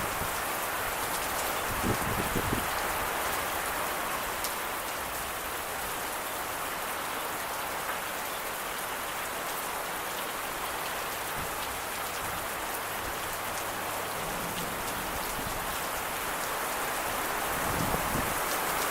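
Steady heavy rain from a thunderstorm, with scattered drop impacts and a brief low thump about two seconds in.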